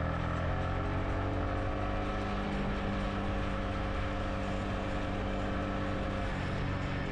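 Motorbike engine running at a steady cruising speed while riding, its pitch edging up slightly in the first couple of seconds and then holding, over steady road and wind noise.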